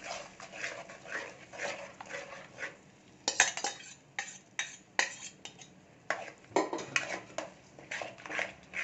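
Metal spatula scraping beaten egg out of a steel bowl and stirring it into masala in a metal pan, with repeated scraping strokes. Sharp metal clinks about three seconds in, with the loudest near the middle, and more clinks around six to seven seconds.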